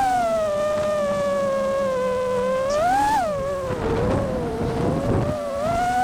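Brushless motors and propellers of an FPV freestyle quadcopter (Axisflying F227 1960kv motors) whining in flight, the pitch sliding with throttle and climbing sharply about three seconds in. A rougher, noisier stretch follows before the whine steadies again.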